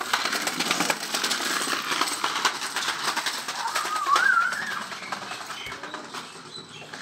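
Hard plastic wheels of a child's kick scooter rolling and rattling over rough concrete, a dense clattering that fades as it moves away. A short warbling chirp comes about four seconds in.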